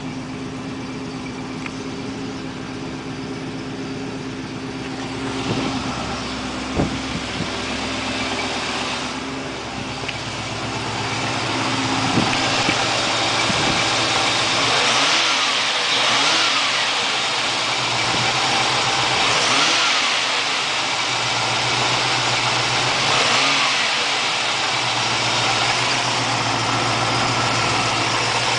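Rover SD1 engine idling while warming up after a cold start, with the revs raised briefly three times in the second half. A couple of sharp knocks about six seconds in.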